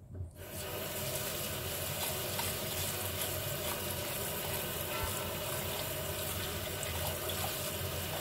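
Tap water running steadily into a plastic colander of grain in a steel sink, starting about half a second in, as the grain is rinsed.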